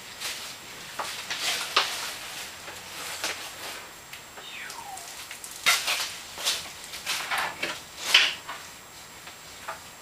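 Irregular knocks, clunks and short scraping hisses of hands-on work as a man climbs a stepladder and handles tools up at a ceiling joist, with a brief falling squeak midway.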